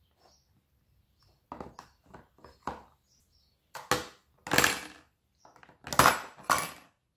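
A metal spoon and containers of glass and plastic clinking and clattering together as lunch boxes are packed: a few light taps, then louder clatters about four and six seconds in.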